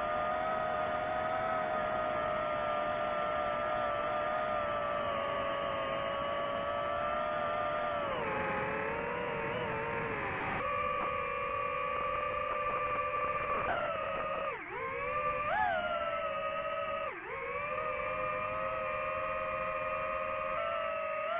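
FPV quadcopter's motors and propellers whining in flight, a steady pitched drone whose pitch drops about a third of the way in and later dips and swings back up several times as the throttle changes.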